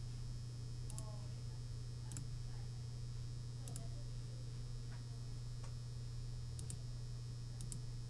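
A few faint, scattered computer mouse clicks over a steady low electrical hum.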